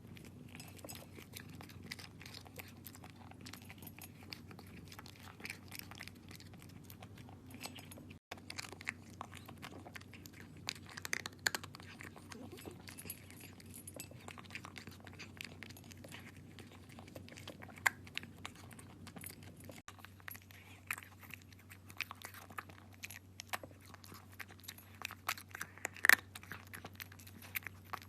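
A cat chewing and crunching food, with many sharp clicks of bites and chews, some louder than others.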